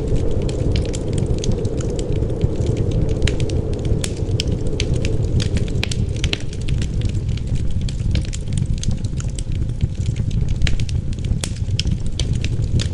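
Wood fire crackling, with frequent irregular sharp pops and snaps over a steady low rumble of wind.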